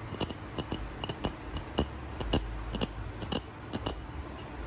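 An irregular run of sharp clicks and taps, two or three a second, over a low steady hum.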